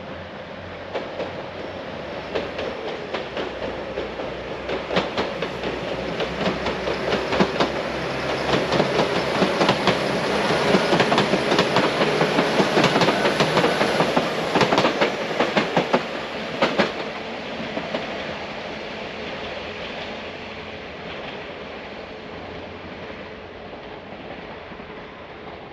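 A train passing on the track, its wheels clicking over rail joints in a rapid rhythm. It grows louder to a peak about halfway through, then fades, with a faint high whine above the rumble.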